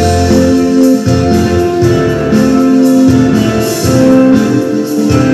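Instrumental background music: a melody of held notes over a bass line.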